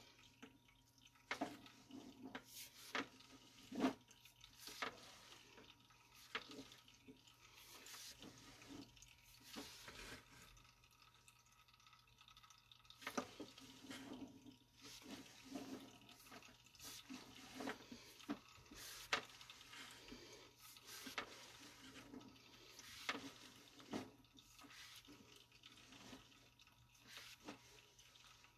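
Faint, irregular drips and splashes of water draining through a sewer pipe, over a faint steady electrical hum.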